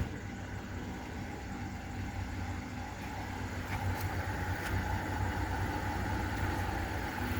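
Kia Optima engine idling steadily, freshly fitted with a new cylinder 2 ignition coil and spark plug to cure a misfire. A fan-like hiss builds from about three seconds in as the air conditioning is switched on.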